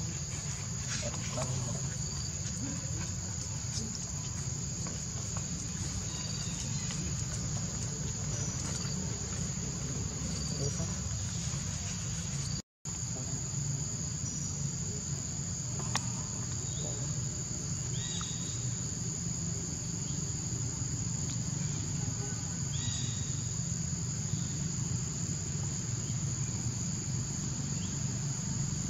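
Steady high-pitched drone of insects over a low, steady rumble, with a few faint short chirps. The sound cuts out for an instant about halfway through.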